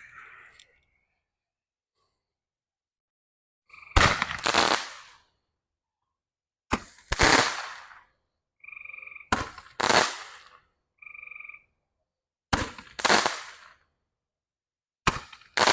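Cutting Edge 5 Ball Brocade to Chry, a five-shot Roman candle, firing its five shots about three seconds apart. Each shot is a sharp pop followed by about a second of hiss.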